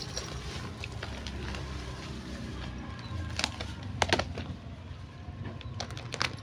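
Leaves and twigs of a shrub rustling, with a few sharp cracks of twigs snapping, bunched about halfway through and again near the end.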